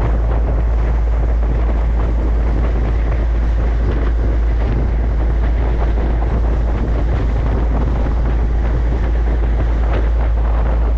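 Heavy, steady wind rumble on the microphone, with an engine running underneath.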